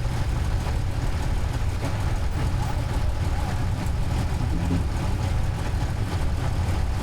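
An engine idling steadily, a low, even rumble with no change in speed.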